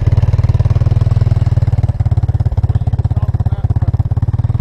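Four-wheeler (ATV) engine idling with a steady, low, rapid putter.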